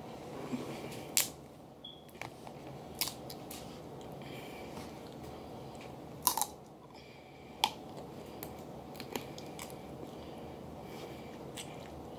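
Eating snow crab legs: sharp cracks and snaps of the shells being broken and picked apart by hand, the loudest about a second in, around six seconds in and near seven and a half seconds, with quieter chewing and mouth sounds in between. A steady low background noise runs underneath.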